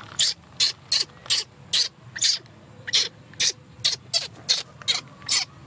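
Baby macaque crying: a steady run of short, high-pitched squeals, about three a second.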